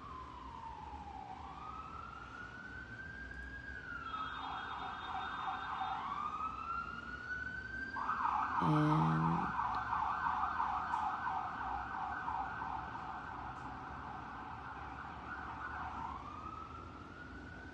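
Emergency vehicle siren: a slow rising and falling wail that switches twice to a fast yelp, the second time for about eight seconds. A short low horn blast sounds near the middle.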